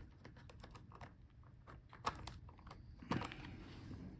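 Faint, quick small clicks and taps of a screwdriver and hand tools on a laptop's hinge screws as they are unscrewed, with two sharper clicks about two and three seconds in.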